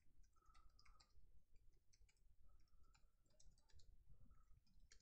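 Very faint, irregular clicking of computer keyboard keys being typed.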